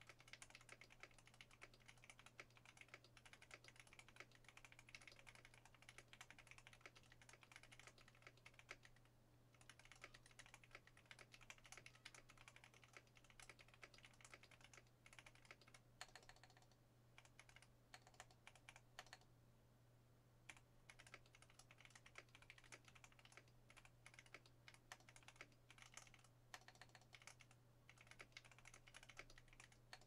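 Quiet, fast typing on a KBD8X mkii custom mechanical keyboard with lubed Alpaca linear switches, a brass plate and GMK keycaps: a quick, continuous patter of keystrokes broken by a few short pauses, over a steady low hum.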